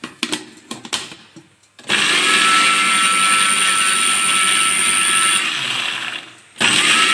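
Countertop electric blender puréeing chopped onion with a little water. A few clicks and knocks come first. About two seconds in the motor starts and runs steadily with a high whine, winds down near the end, and starts up again.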